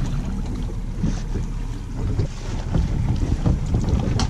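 Wind buffeting the microphone aboard a small fishing boat: a steady low rumble, with a few faint knocks.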